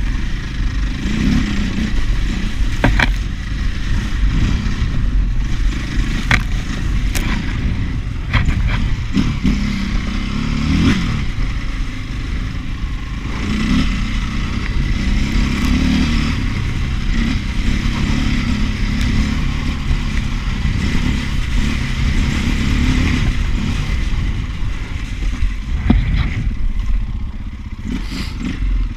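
KTM 530 EXC enduro bike's single-cylinder four-stroke engine running under load, its pitch rising and falling as the throttle is worked. Several sharp knocks and rattles cut through, as the bike clatters over the rough track.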